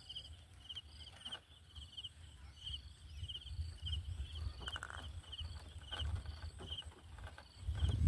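Faint high chirping repeated about twice a second, over a low rumble, with a few soft clicks and rustles.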